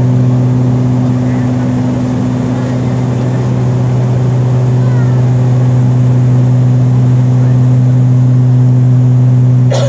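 Steady drone of a passenger aircraft in flight, heard inside the cabin: an even rush with a low, constant hum beneath it. A short knock comes near the end.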